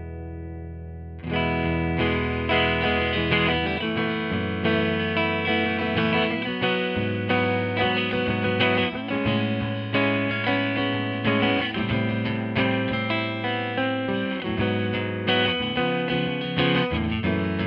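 1994 Hamer Chaparral electric guitar through a Tone King Imperial MK II amp on a clean, slightly hot setting. A held chord rings and fades, then about a second in new chords and notes are picked in a steady rhythm.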